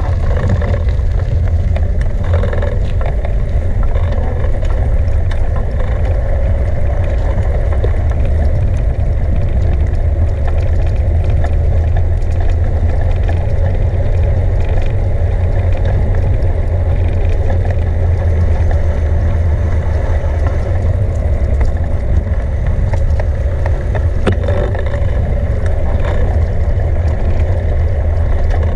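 Steady low rumble of riding a bicycle, wind and tyre noise picked up by the moving camera, with a few faint clicks.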